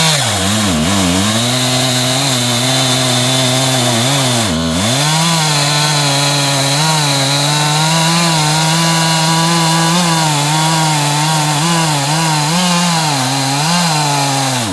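Stihl chainsaw on an Alaskan chainsaw mill running at full throttle under load, ripping a 2-inch slab lengthwise through an oak log. The engine pitch sags briefly near the start and again about four and a half seconds in, then holds steady until the revs drop at the very end.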